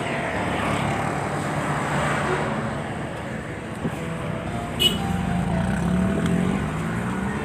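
Road traffic: cars passing on a busy road, a steady wash of engine and tyre noise that swells as a vehicle passes close about five to six seconds in. A short sharp click just under five seconds in.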